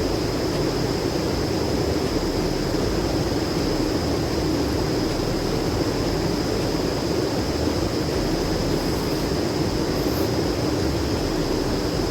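Steady rushing of a mountain river, an even unbroken noise, with a thin, faint high tone held steady above it.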